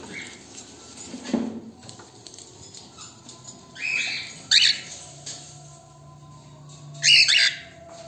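Cockatiels calling in a cage: a couple of sharp chirps about four seconds in and another burst of louder chirps near the end, with a soft thump about a second in.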